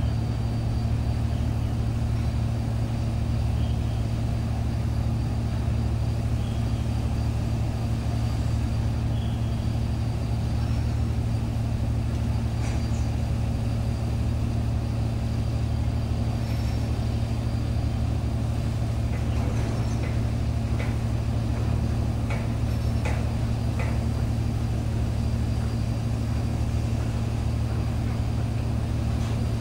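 Steady low drone of a ship's diesel engine running at a constant speed, with a few faint clicks about two-thirds of the way through.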